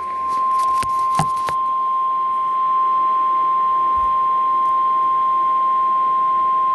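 Weather radio warning alarm: a single steady, high tone held without a break, the long attention tone that opens an alert broadcast. A few sharp clicks sound over it about a second in.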